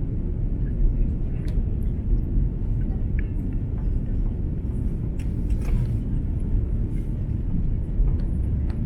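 Steady low rumble of cabin noise inside an Airbus A330-300 airliner, with a few faint clicks.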